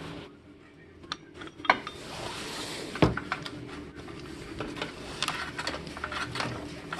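Scattered metal clicks and clinks of hand tools and nuts being handled at an engine's water pump pulley, with one louder knock about three seconds in.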